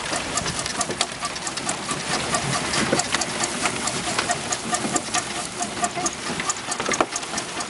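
Homemade steel-barrel drum mixer turning while loose straw is tossed in: a steady clatter of quick clicks, with a short squeak repeating about three times a second.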